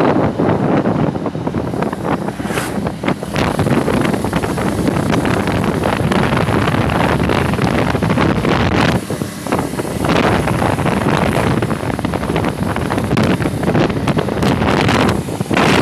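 Wind buffeting the microphone of a moving motorcycle, a loud, fluttering rush with the motorcycle's running mixed in underneath. It dips briefly about nine seconds in.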